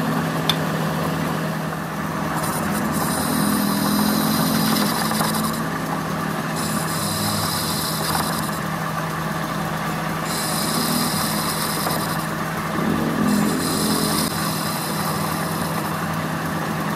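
Metal lathe running steadily with the workpiece spinning in the chuck while the tool bit cuts metal; a high-pitched ringing from the cut comes and goes four times, each lasting about two seconds.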